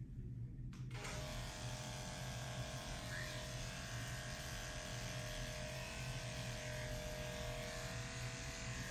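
Electric dog grooming clipper switching on about a second in and running steadily with an even buzz as it trims a Shih Tzu's head; it cuts off near the end.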